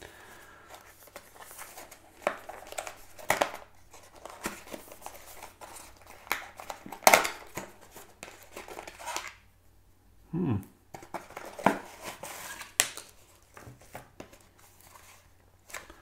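Packaging being handled while a small electronics box is unpacked: paper and plastic rustling and crinkling, with scattered taps and clicks, the sharpest about seven seconds in.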